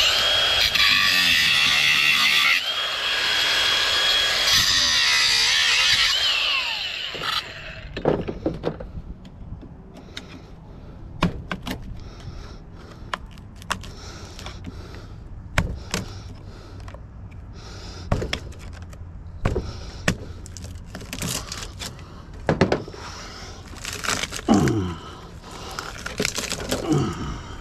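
Cordless angle grinder with a cut-off disc cutting through the remaining corners of a transformer's steel core: a harsh grinding noise with a steady high whine for about seven seconds, then it stops. After that come scattered clicks, knocks and scrapes as the cut transformer is handled and pried apart.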